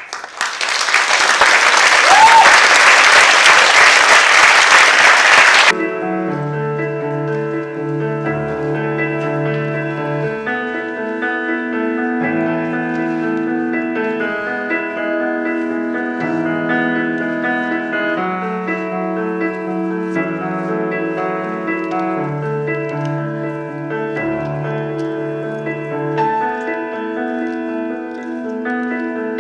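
Audience applause, loud for about six seconds, then cut off abruptly. Slow piano music of held chords over low bass notes follows.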